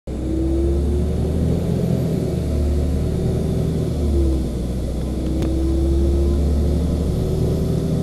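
LiAZ-5292.65 city bus running along a country road, its engine and road noise heard from inside the passenger cabin. The engine note is steady, with a brief dip in pitch about four seconds in and a single faint click about five seconds in.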